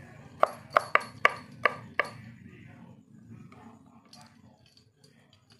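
Kitchen knife chopping on a cutting board: about six quick, sharp chops in the first two seconds, then only faint light knocks.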